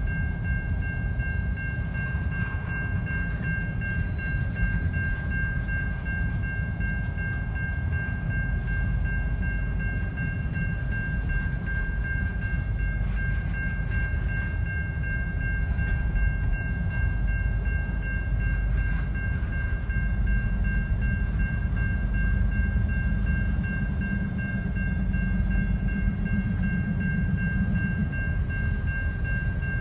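Double-stack container freight train rolling past a grade crossing: a steady low rumble of wheels and cars. The rumble grows heavier about two-thirds of the way through as mid-train diesel locomotives come by. A thin, steady high tone sounds over it.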